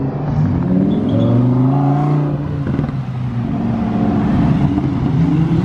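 Lamborghini Huracán's V10 accelerating hard as the car pulls away, its engine note climbing in pitch, dropping once about halfway through at an upshift, then climbing again.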